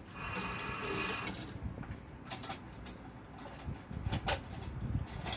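Kitchen tap water running for about a second near the start, then scattered light clicks and knocks of things being handled at the counter.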